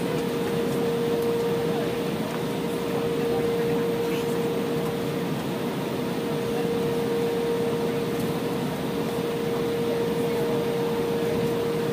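Steady cabin noise inside an Embraer 175 regional jet taxiing: an even rush of engine and air-conditioning noise with a constant single-pitched whine.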